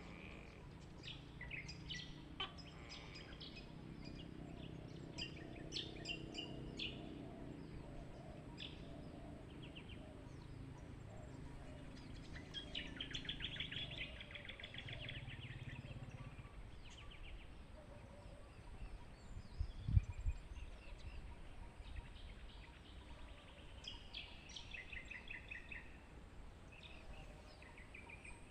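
Several small birds chirping and trilling in a rural village soundscape, with a rapid buzzy trill about halfway through and again near the end, over a low background hum. A brief low thump about two-thirds of the way in.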